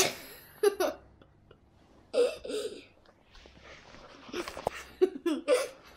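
A young child's voice in short separate bursts: brief vocal noises and a few mumbled syllables, with quiet pauses between them.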